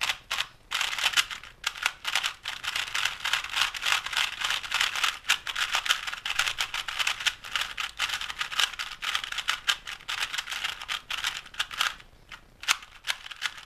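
3x3 speed cube being turned rapidly by hand: a dense run of plastic clicks and clacks from the layers turning, stopping about twelve seconds in, followed by a few separate turns near the end.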